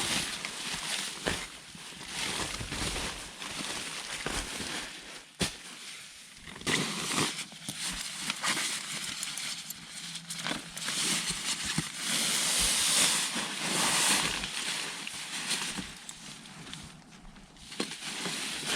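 Strong wind gusting, a hissing noise that swells and fades, with a few sharp clicks and knocks from nearby handling.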